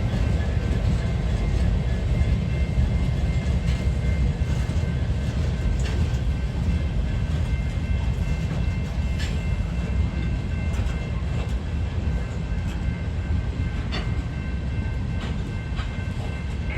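Norfolk Southern train rolling past: a steady low rumble of cars on the rails with scattered sharp clicks and faint high steady tones over it, easing off a little toward the end.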